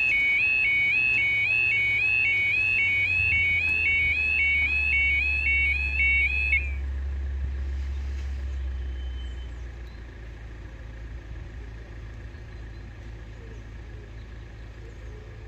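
UK level crossing audible warning alarm: an electronic two-tone warble repeating about twice a second, warning road users that the barriers are closing for a train. It cuts off suddenly about six and a half seconds in, leaving a steady low rumble.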